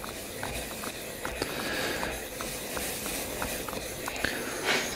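Steel back of a wood chisel rubbed back and forth flat on a wet 6000-grit Japanese water stone: a steady gritty scraping with light clicks a few times a second. This is the final polishing of the flat back after the burr has been removed.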